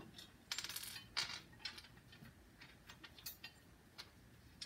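Nuts and bolts being snugged up finger tight on the steel frame of a Dake tabletop hydraulic press: faint metallic clicks and rattles, with a quick run of fine ticks about half a second in and a sharper click just after a second.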